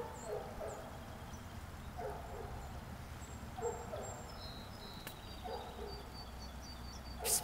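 Short animal calls in brief clusters, repeating about every one and a half to two seconds, with faint high chirps above them and a steady low rumble underneath.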